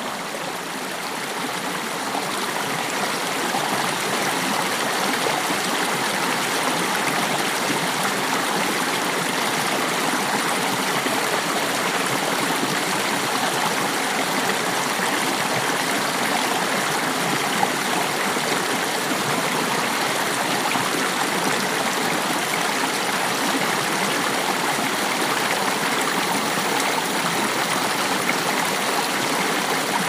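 Running water of a forest stream: a steady, even rush of flowing water.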